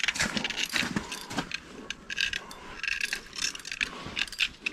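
Spinning reel being cranked in spurts, its gears and handle clicking and rasping, while reeling in a heavy fish.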